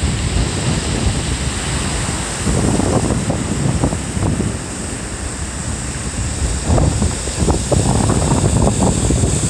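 Wind buffeting the microphone over the steady wash of surf breaking on a pebbly beach. The gusts grow stronger about two and a half seconds in and again for the last few seconds.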